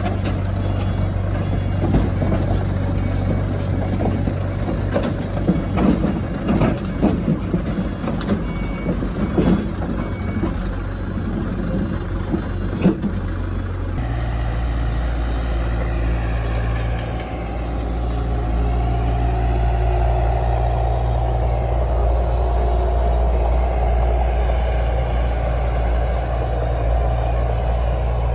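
Heavy diesel earthmoving machinery running: a bulldozer and dump truck, with repeated metal clanks and knocks and a few short beeps in the first half. After an abrupt change about halfway, a steady engine drone continues.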